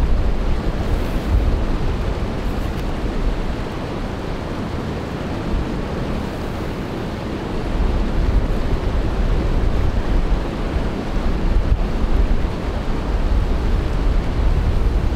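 Wind buffeting the microphone: a steady low rush of wind noise that eases for a few seconds in the middle and comes back stronger about eight seconds in.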